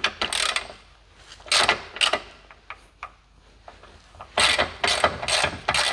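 Hand ratchet with a socket on an extension being worked on a bolt under a car: a few scattered clinks and clicks, then from about four seconds in a steady run of ratcheting strokes, two to three a second.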